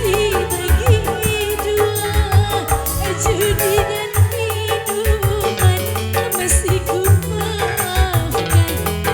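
Live dangdut music from an organ tunggal keyboard band: a bending, ornamented melody line over bass and drum beats with regular high ticks.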